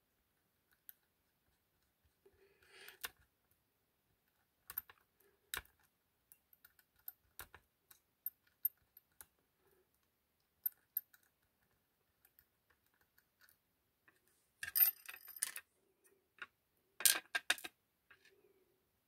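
Faint, sparse metallic clicks and small scrapes of lockpicking tools working in a small brass ASSA 6000 lock cylinder, with two short rattling clusters of clicks a couple of seconds apart near the end.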